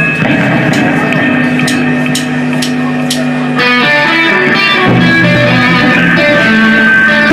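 A live rock band's electric guitars and bass playing held notes over a sustained low bass note, with sharp ticks about twice a second through the first three seconds. About three and a half seconds in, the guitars move to a new run of picked notes.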